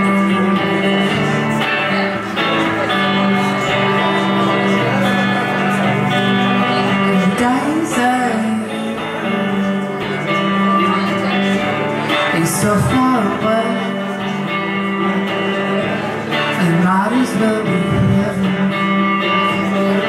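Live electric guitar music from a Stratocaster-style guitar, held chords ringing on, with a man's voice singing over it at times.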